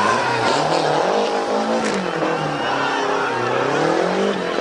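Renault 5 rally car's engine revving hard as it slides round a tight bend and pulls away, the revs repeatedly climbing and dropping.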